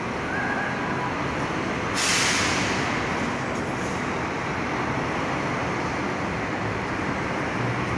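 Coach bus engine running steadily, with a sudden hiss of air from its air brakes about two seconds in that fades away over a second or so.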